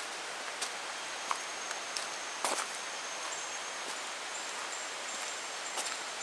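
Footsteps crunching now and then on a leaf-littered forest trail, over a steady hiss of forest ambience. A thin high steady tone comes in about halfway through.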